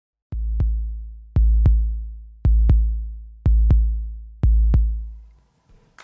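Background music intro: five deep electronic bass-drum beats about a second apart. Each beat is a quick double hit with a long low tail, and the beats fade out near the end.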